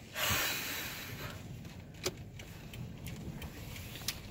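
Heard from inside a car's cabin: a short whoosh of noise about a second long at the start, then a low steady car hum with a couple of faint clicks.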